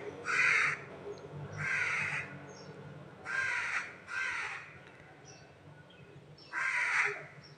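A crow cawing: five harsh caws of about half a second each at uneven intervals, over a faint low hum.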